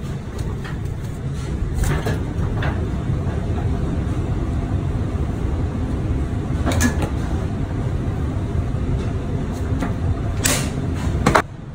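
Steady low rumble of a kitchen extractor hood fan, with scattered clicks and knocks from a knife and raw beef being handled on a plastic cutting board. The strongest knocks come near the end, and the sound then drops off suddenly.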